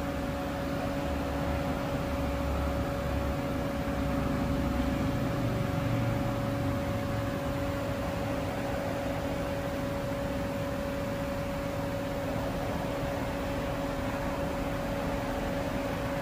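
Haas TM3P CNC machining center running under power: a steady hum with a constant mid-pitched whine. A low rumble swells briefly about five to seven seconds in.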